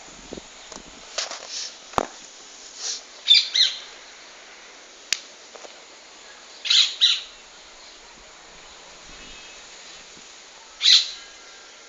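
Male praying mantis hissing defensively when threatened: short bursts, several of them coming in quick pairs, with a sharp click or two between.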